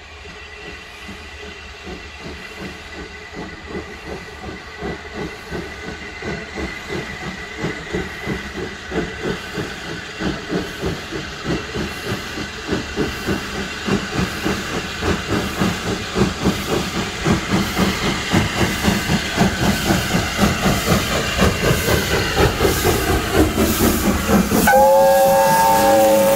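Steam locomotive working towards the listener, its rhythmic exhaust beats and steam hiss growing steadily louder as it nears. About a second and a half before the end its steam whistle sounds loudly, a chord of several pitches held as the engine passes close by.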